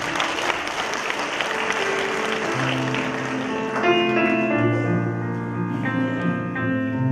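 Audience applauding over instrumental music; the applause dies away after about three seconds and sustained music notes carry on.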